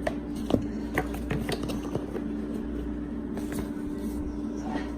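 Paper and cardboard packing from a camera box being handled: several short clicks, taps and rustles, the sharpest a little over half a second in. A steady low hum runs underneath.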